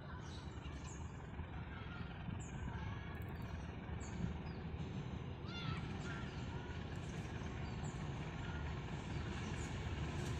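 Diesel locomotive of a passenger train approaching: a low engine rumble growing steadily louder as it nears. Birds call over it, with short high chirps repeating every second or so.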